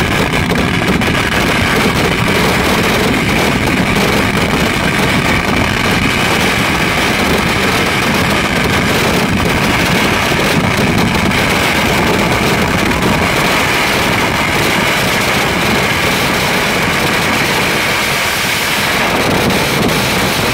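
Kerala temple-festival fireworks (vedikkettu): a continuous barrage of firecracker and aerial shell explosions so rapid that they merge into one loud, unbroken noise.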